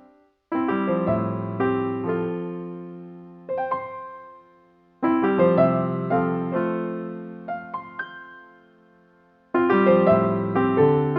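Background piano music: gentle, easy-listening chords struck about every four and a half seconds and left to ring and fade, with a few single notes between them.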